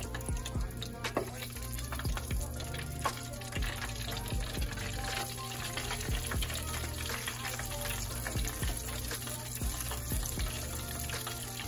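Battered jackfruit pieces deep-frying in a pot of hot oil: a steady sizzle thick with small crackles and pops.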